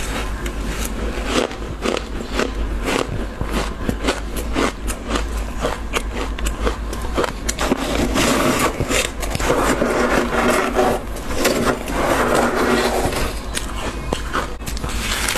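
Close-miked crunching of a mouthful of powdery freezer frost, a rapid run of sharp crunches. About halfway in, a spoon scrapes and scoops frost from the walls of a chest freezer for several seconds.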